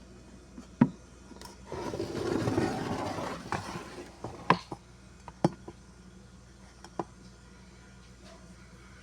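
A sharp knock, then about two seconds of rubbing and scraping, followed by four or five lighter knocks and clicks: objects being handled and set down while a refrigerator is being cleaned.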